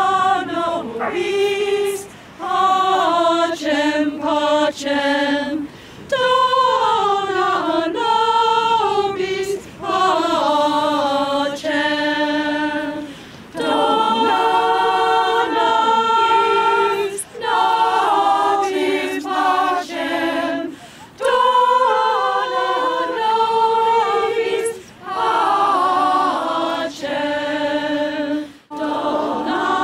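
A community choir singing unaccompanied, phrase after phrase, with short breaks between the lines.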